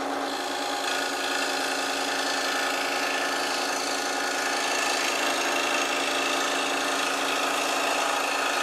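DeWalt DW788 scroll saw running steadily, its reciprocating blade cutting a piece of wood, with a constant motor hum under the sawing.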